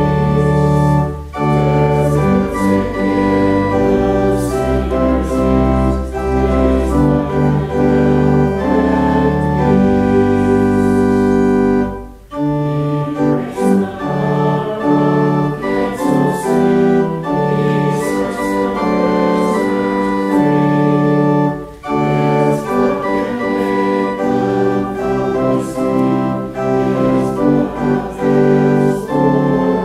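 Church organ playing a hymn in sustained full chords, with short breaks between phrases about every ten seconds; the deep pedal bass drops out about twelve seconds in.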